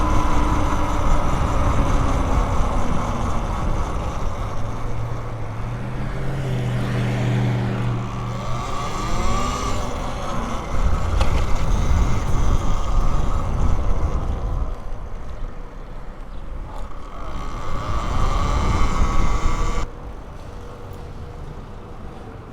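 Wind rushing over the microphone and the whine of a Talaria Sting R electric dirt bike's motor, falling in pitch as the bike slows, with another motor vehicle's engine heard partway through. The rushing cuts off abruptly about twenty seconds in.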